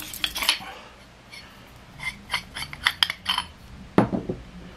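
Metal tube sections of a survival stick being twisted apart and handled: light metallic clicks and scrapes, a quick run of small clinks about two seconds in, then a knock as a tube is set down on the wooden table near the end.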